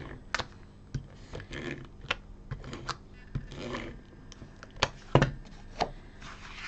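Stampin' Seal adhesive tape runner run along the back of a card panel, with short rasps and a scatter of light, irregular clicks and taps of card and plastic on the desk; the sharpest clicks come about three-quarters of the way through.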